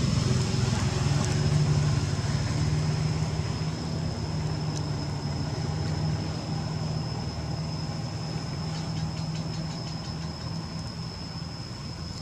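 Steady low hum of an engine running, slowly fading, with a thin, steady high-pitched whine above it.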